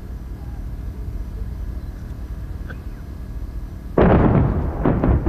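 Artillery shell explosions on a firing range: a sudden loud blast about four seconds in that dies away over a second, with a second bang about a second later, over a low steady rumble.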